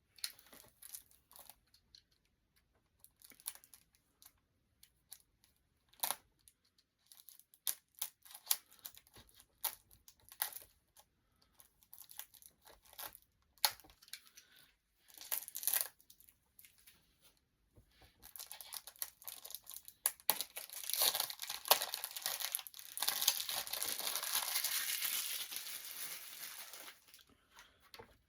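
CD packaging being handled and torn open: scattered crinkles and clicks, then, about two-thirds of the way in, a long stretch of tearing and crinkling lasting several seconds.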